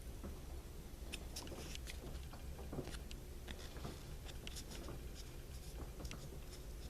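Small plastic Kinder Surprise toy parts being handled, giving irregular light clicks and taps over a low steady hum.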